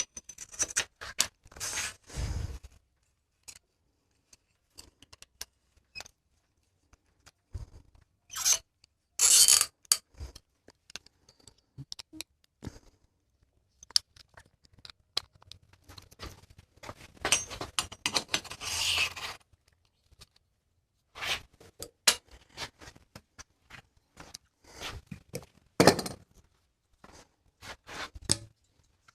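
Hands working on a mountain bike with tools and parts: irregular clicks, knocks and scraping bursts with pauses between.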